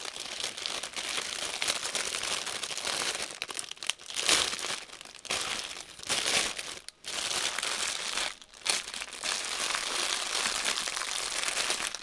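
Plastic bags and wrapping crinkling and crackling as they are handled and unwrapped, with louder bursts of crackling about four and six seconds in.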